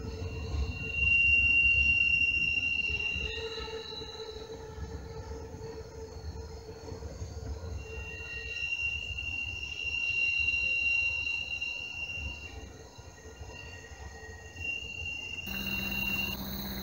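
Freight train's wheels squealing on curved track, long high-pitched squeals that fade and return over a low rumble.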